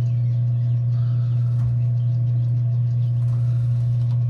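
A steady low hum with no break or change, with a few faint higher steady tones above it.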